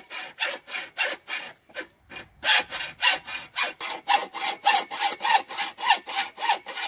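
Hacksaw cutting through steel Unistrut strut channel by hand, a steady back-and-forth rasp at about three strokes a second. The sawing pauses briefly about two seconds in, then resumes.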